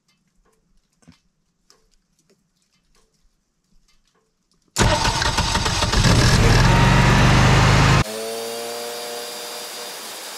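Generac EcoGen 15K standby generator engine starting on its auto-start contact. Faint ticking, then about five seconds in the engine starts with a sudden loud burst lasting about three seconds. It then drops to a steadier, quieter run that eases down slightly.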